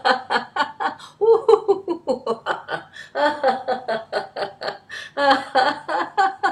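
A woman laughing heartily and continuously in rapid, even 'ha-ha' pulses, about five or six a second. It is deliberate laughter-yoga laughter.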